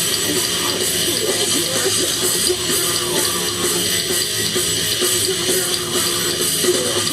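Live rock band playing a song, loud and dense throughout.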